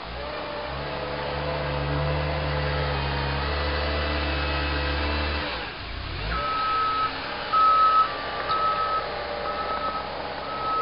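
Caterpillar 257B2 skid-steer loader's diesel engine running steadily under load. From about six seconds in, its reversing alarm beeps repeatedly over the engine.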